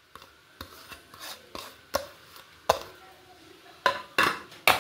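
Scattered clicks and knocks of a plate and a metal potato masher against a mixing bowl as grated carrot and chopped capsicum are tipped onto mashed potatoes, with a quicker run of knocks near the end.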